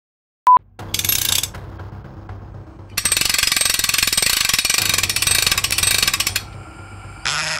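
A short high beep, then a handwheel on the heavy gear machinery of the F60 conveyor bridge being cranked by hand, its gears and pawl clattering in rapid clicks for about three seconds before it stops.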